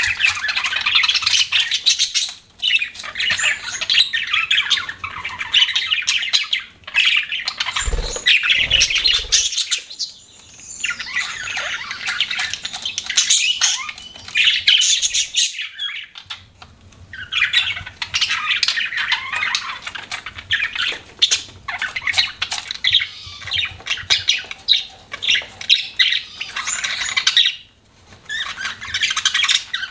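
Budgerigars chirping and chattering, a dense run of rapid short calls with a few brief lulls. A couple of low thumps come about a third of the way through.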